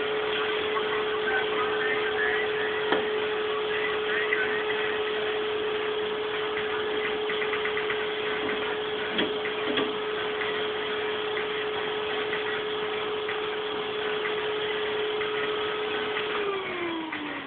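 An electric motor runs with a steady hum, then begins winding down with falling pitch near the end as it is switched off. A few light knocks sound over it.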